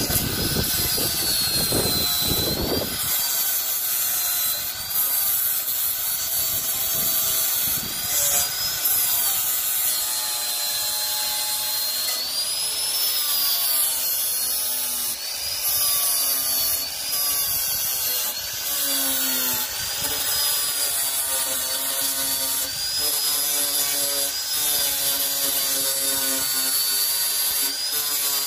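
Handheld power tool running under load, with a high whine that wavers up and down in pitch as it works; a heavier low rumble fills the first few seconds.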